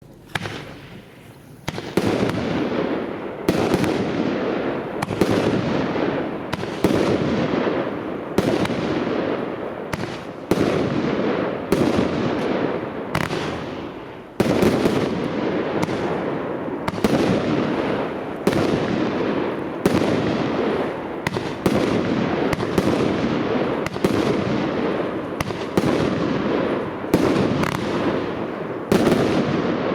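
Planet Fireworks 'Spartan' 64-shot single-ignition barrage cake firing. After a quieter first two seconds, it lets off a steady run of sharp shots, one to two a second, each with a fading tail.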